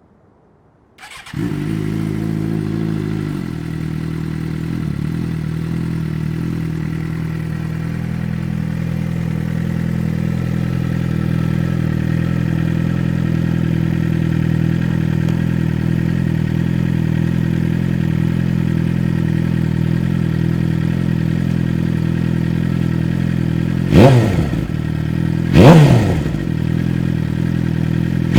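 A 2007 Suzuki GSX-R600's inline-four engine starts through a DanMoto carbon slip-on exhaust, catching about a second in and settling into a steady idle. Near the end the throttle is blipped twice, each rev rising and falling quickly, and a third blip begins right at the close.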